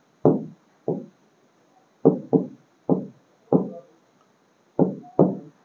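Stylus tapping against an interactive touchscreen board as words are written: about eight short, dull knocks at uneven intervals, some in quick pairs.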